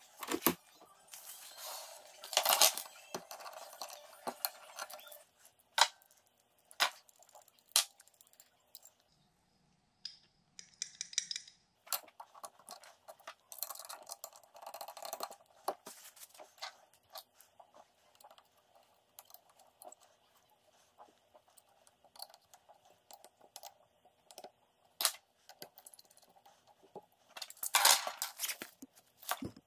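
Hands handling small metal tools and parts on a workbench: scattered clicks and taps, with louder rustling and crinkling about two seconds in and near the end, and a brief hiss about ten seconds in.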